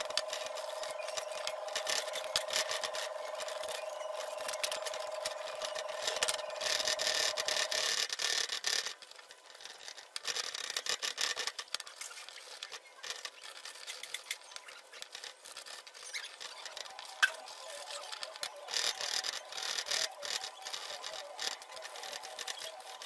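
Sandpaper rubbed by hand over rusty metal parts of an old breast drill, in rapid back-and-forth scraping strokes that ease off about nine seconds in and pick up again later. A faint steady whine sits under the first third.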